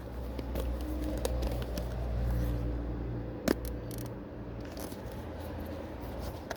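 Small rustles and clicks of packaging being handled as a new gear shifter knob is unwrapped, with one sharp click about three and a half seconds in, over a steady low hum.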